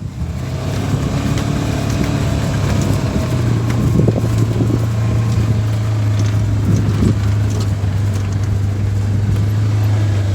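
Vehicle engine running steadily at a low, even pitch, starting abruptly and easing slightly lower about three seconds in.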